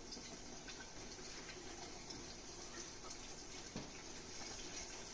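Faint rustle and patter of flour sliding around inside a greased metal cake pan as it is tilted and shaken to coat the sides, over a steady hiss, with one light knock of the pan near four seconds in.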